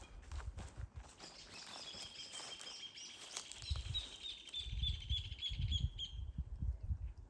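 A songbird calling a long run of short, repeated high notes, about three a second, from about two seconds in until about six seconds. Low thuds of footsteps sound underneath.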